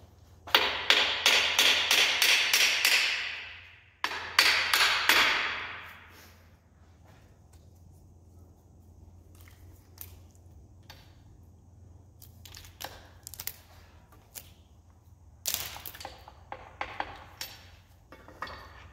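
A handheld power tool runs in two bursts of rapid clicking, about three seconds and then two, the first winding down at its end. Scattered light metal clinks and knocks follow as parts are handled.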